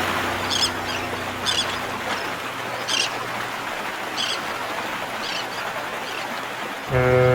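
Steady sea wash with short high bird calls every second or so, then a ship's horn sounds, loud and deep, near the end.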